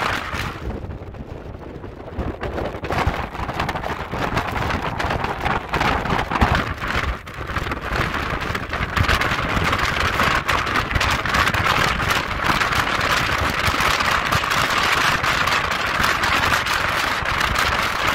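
Rushing wind and water noise aboard a moving ferry, with wind buffeting the microphone in a constant crackle. It is muffled for the first couple of seconds, then comes in full and steady.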